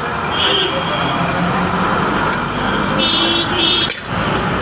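Busy road traffic with two short vehicle horn toots, the first about half a second in and the second around three seconds in.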